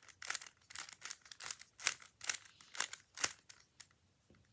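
Rubik's cube layers being twisted quickly, a rapid run of plastic clacks at about three a second that stops about three seconds in.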